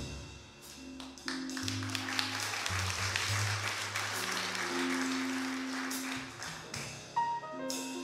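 Small jazz combo playing a slow ballad: sustained upright bass and piano notes over a hissing swell of noise through the middle.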